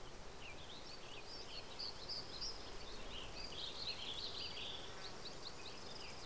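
Faint background of small birds chirping: many short, quick chirps and twitters, scattered irregularly over a low, steady hiss.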